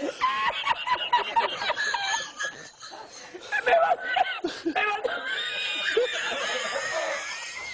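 A man laughing uncontrollably in high-pitched, squealing bursts broken by short catches of breath. The laughter drops quieter about two and a half seconds in, then picks up again.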